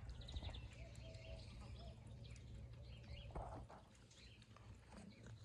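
Faint outdoor ambience: small birds chirping over a low steady hum, with a brief rustling noise a little over three seconds in.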